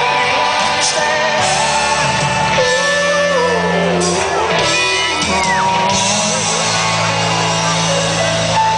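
Live band playing through stage speakers: electric guitars, drums and a singer, with the voice sliding up and down in pitch partway through.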